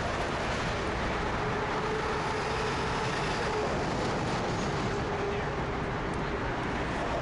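C-160 Transall's twin Rolls-Royce Tyne turboprops running, a steady roar with a droning tone that comes in about two seconds in.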